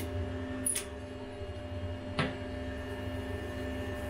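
Steady electrical hum with a low rumble underneath, broken by two brief clicks, about a second and two seconds in.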